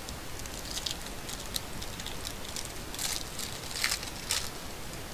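Foil trading-card pack wrapper crinkling as hands tear it open and crumple it: a series of crisp crackles, the loudest about three and four seconds in.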